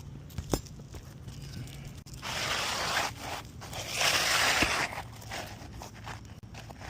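Old brittle 3-tab asphalt shingles being worked by hand: a sharp snap about half a second in, then two rough stretches of scraping and crunching around two and four seconds in, as tabs are pried up and cracked.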